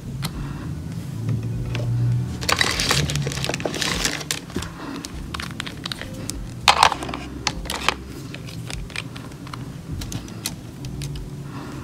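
Gel polish bottles and a plastic tray being handled: scattered clicks and crackly rustling, with a louder knock about two-thirds of the way in, over a low steady hum.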